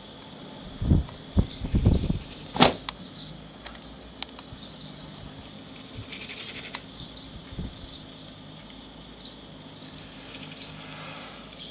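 Outdoor ambience with small birds chirping on and off, and a few low thumps on the microphone about one to two seconds in.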